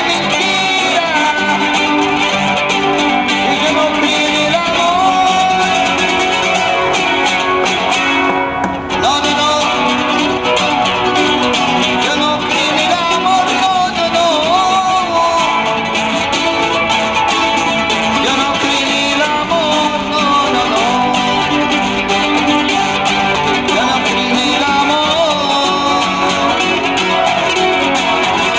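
Nylon-string classical guitar played in a flamenco style, with a man singing along.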